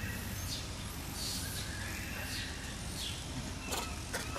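Outdoor ambience: a steady low rumble under high, hissy calls that fall in pitch and repeat about every three-quarters of a second, with a few thin bird-like chirps and a short rising-and-falling call near the end.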